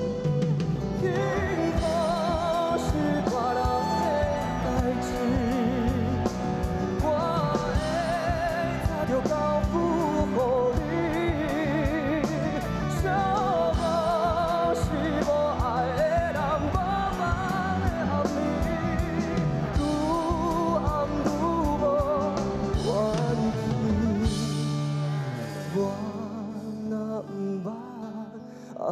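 Live band playing under a male vocalist who sings a long, ornamented melody with wide vibrato. Near the end the drums and bass drop out and the music quietens.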